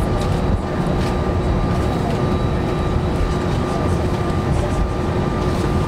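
Airbus A320 cabin noise on the ground: a steady low rumble with a constant whine from the running engine, unchanging throughout.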